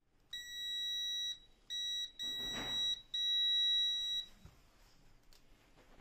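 Digital multimeter's continuity beeper sounding four times, steady high beeps of uneven length, each marking the contacts of a Yamaha jet ski switch box's start switch closing as it is pressed. Faint handling clicks follow.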